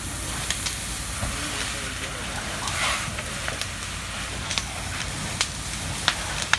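A caravan burning fiercely, crackling with scattered sharp pops over a steady hiss as a fire hose's water jet plays onto the flames.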